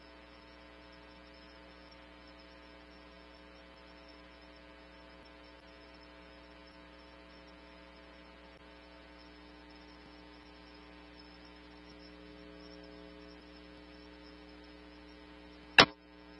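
Steady electrical hum with faint hiss on a police radio scanner feed between transmissions. Near the end, a short loud burst of radio noise cuts in and stops.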